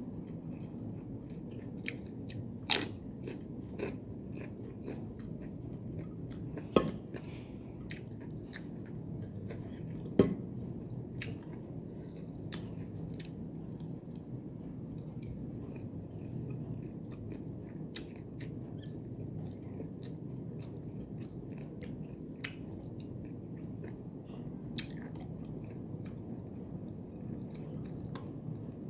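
A person chewing and biting food close to the microphone, with moist mouth sounds and scattered short clicks, three of them sharper and louder in the first ten seconds.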